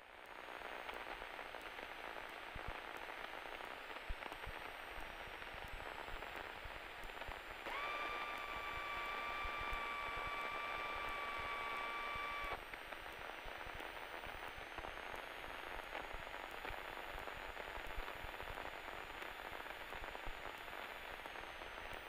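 Steady hiss of an aircraft radio and intercom audio feed. About eight seconds in, a steady tone with a couple of overtones comes in, holds for about five seconds, then cuts off.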